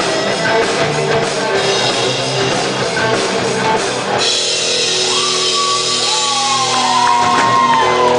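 Rock band playing live, with guitar and drum kit. About four seconds in, the busy playing gives way to a held chord with a long, gliding high note over it, the close of the song.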